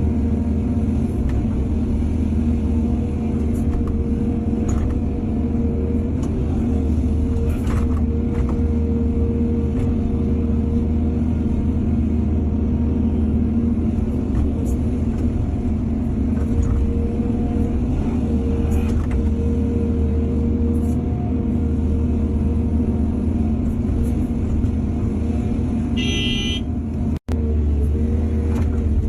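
Heavy diesel engine of an excavator running steadily, with scattered short knocks and clanks. There is a brief high beep near the end, and just after it the sound cuts out for an instant.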